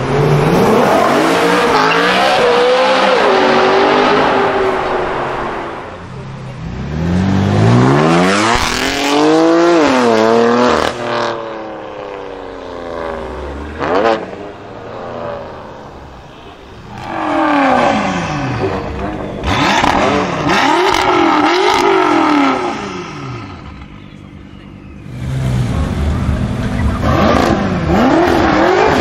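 Tuned BMW M cars with aftermarket exhausts accelerating hard one after another. In four separate bursts each engine revs up through the gears, the pitch climbing and dropping back at every shift, with a few sharp cracks from the exhaust in between.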